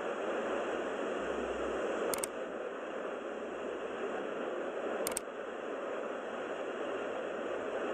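Steady rushing hiss-like noise, broken by two sharp clicks about three seconds apart.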